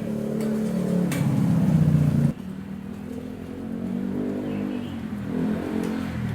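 A motor vehicle engine running, rising in level and pitch over the first two seconds, then cut off abruptly, after which a quieter engine hum carries on.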